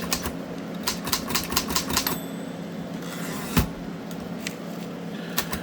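Remington 1040 typewriter keys pressed one after another, the typebars clacking in a quick run for about two seconds, then a few scattered strikes with one louder clack midway. The keys are being tested for sticking after a cleaning with isopropyl alcohol.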